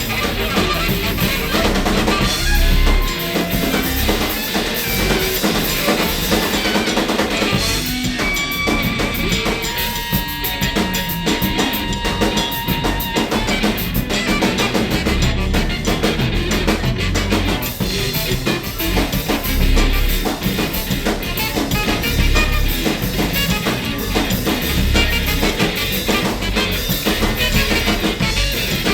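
Recorded free-jazz band improvisation, densely layered, with the drum kit to the fore: repeated heavy bass-drum thumps and busy snare and rim hits. A few long held notes sound about ten seconds in.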